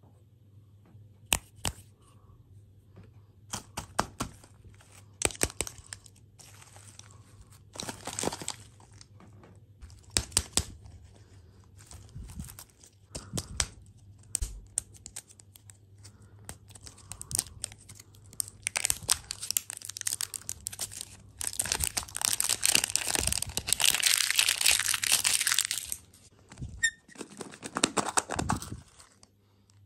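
Plastic candy and dessert wrappers crinkling and being torn open, with scattered sharp clicks and short rustles. About two-thirds of the way through comes a longer, louder stretch of steady crinkling.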